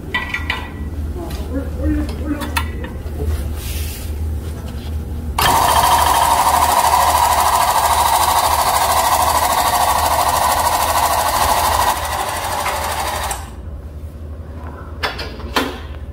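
Air-driven hydraulic foot pump running under a scissor-type battery lift: a loud, steady hiss-and-buzz that starts about five seconds in, holds for about six seconds, weakens and then stops about thirteen seconds in.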